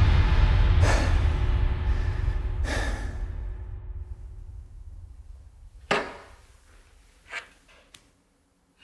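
A low rumbling drone fades away, with two swishes about one and three seconds in and a sharp strike about six seconds in, then two smaller knocks: a bamboo kendo sword (shinai) swung and striking.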